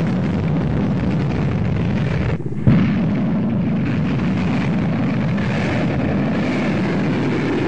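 Rocket motor of a ballistic missile firing at lift-off: a steady, dense rumbling noise, broken by a short dip and a sudden fresh onset a little under three seconds in.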